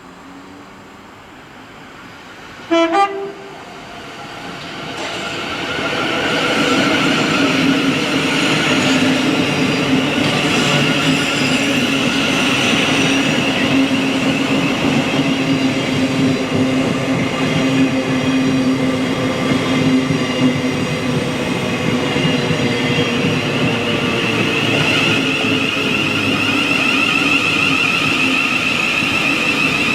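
A train horn sounds two short blasts about three seconds in, then a train runs past, its steady hum and rail noise building over a few seconds and staying loud.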